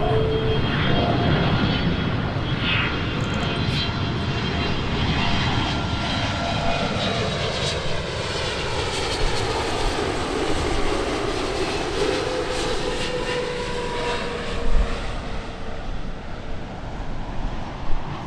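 Jet airliner passing close by on its landing approach: steady engine noise with a whine that slowly drops in pitch as it goes past.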